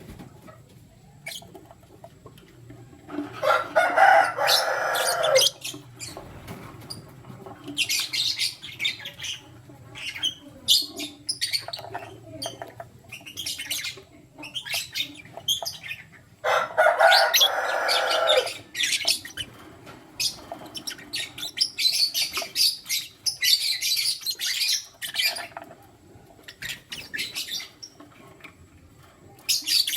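Lutino lovebird and its mate chirping and chattering in bursts, with quieter gaps between. Two louder, harsher calls of about two seconds each stand out, about three seconds in and again past the middle.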